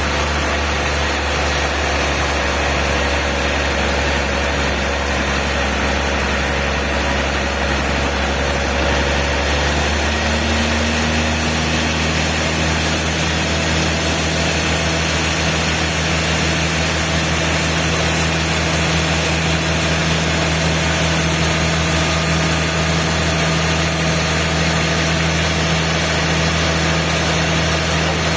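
Sawmill machinery running with a steady, engine-like drone. About ten seconds in, its tone shifts and settles at a new pitch.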